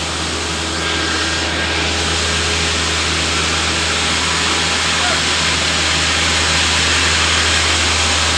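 Steady, loud machinery noise with a low hum underneath, growing slightly louder about a second in.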